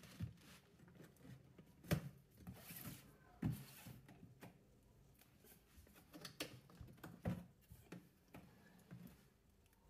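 Scissors cutting along the lid seam of a large cardboard box: faint, scattered snips and clicks, with a few sharper knocks about two, three and a half and seven seconds in.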